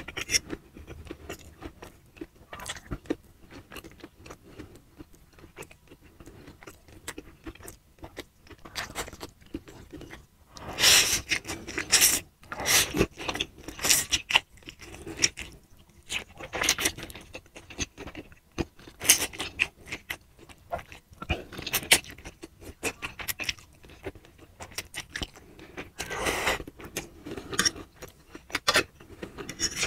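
Close-up eating of fried instant noodles: repeated loud slurps as forkfuls of noodles are sucked in, with chewing and a metal fork scraping and clinking on a ceramic plate between them.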